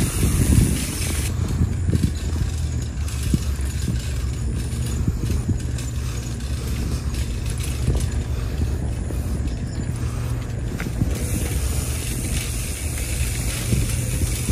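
A bicycle rolling along a paved trail, rattling and clicking, over a steady low rumble of wind on the microphone.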